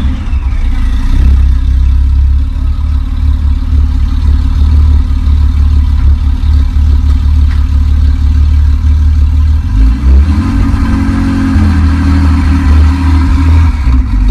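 Car engine and exhaust running loud and steady with a deep low note, changing pitch about ten seconds in.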